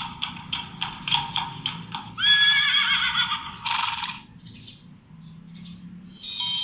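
Recorded horse sound effect played through a children's sound book's small speaker: hooves clip-clopping at about three steps a second, then a horse whinnying for about two seconds. Near the end, a twinkling chime starts as the next button is pressed.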